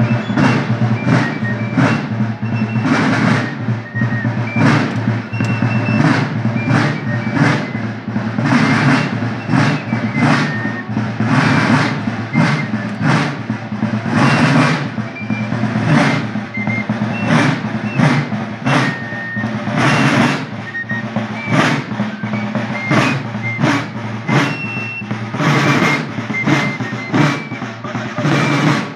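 Marching drum corps beating side drums in a steady march rhythm, about two strokes a second with rolls, over a full low drum body. Short high whistle-like notes sound over the beat.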